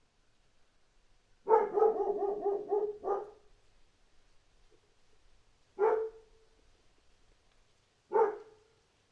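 A dog barking: a rapid run of about eight barks in under two seconds, then two single barks a couple of seconds apart.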